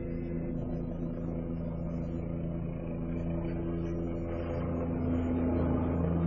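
A stationary vehicle's engine idling steadily, heard from inside the cab as an even hum that grows slightly louder near the end.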